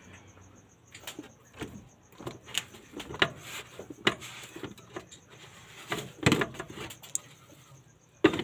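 Jars and bottles being handled and set down on wooden crate shelves: a run of irregular light knocks, clicks and clatters.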